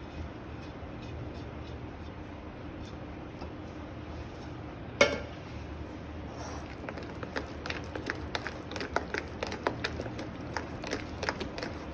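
A metal spoon and then a hand mixing and beating thick ground-dal batter in a bowl, aerating it. After a sharp clink of the spoon on the bowl about five seconds in comes a quick, irregular run of soft wet clicks and squishes.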